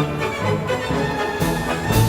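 Background music: an orchestral-style track with steady sustained notes and a regular beat.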